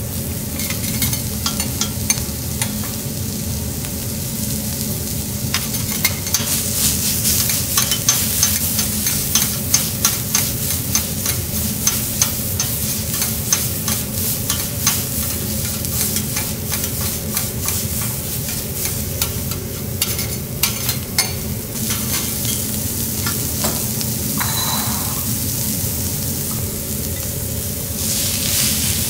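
Minced beef and garlic sizzling on a hot steel teppanyaki griddle, with rapid metal clicks and scrapes as spatulas chop and toss the meat, busiest from about six to twenty-two seconds in. Near the end there is a louder scraping as cooked rice is tipped from a bowl onto the griddle.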